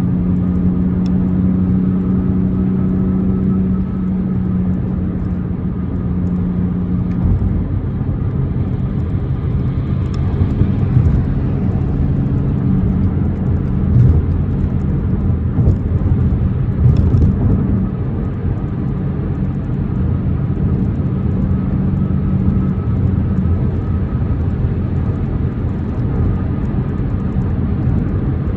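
BMW M4 Competition's twin-turbo inline-six running while the car is driven, over a steady rumble of road and tyre noise. The engine note holds steady, then shifts in pitch a few times as speed or gear changes.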